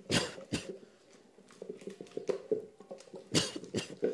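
Wooden pestle knocking and squelching in a mortar as a thick paste of pounded crayfish, yellow pepper, palm oil and ngu is mixed for ncha: irregular thuds, with two louder strikes near the start and two more near the end.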